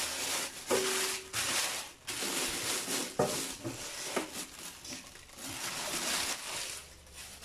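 Clear plastic wrapping rustling and crinkling as it is pulled off the inverter, in several long swishes with a few brief squeaks.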